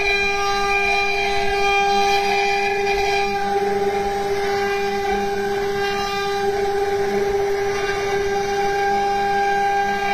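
CNC router spindle running at a steady high-pitched whine with several overtones while its engraving bit carves a turning wooden workpiece, over a rough noise of cutting.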